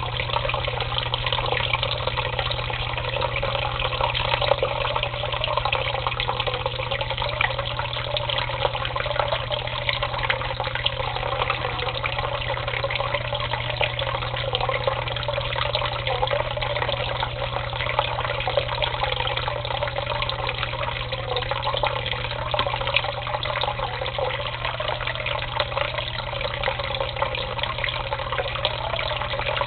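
Steady splashing of water pouring from an aquarium filter outlet into a turtle tank, with a steady low hum underneath.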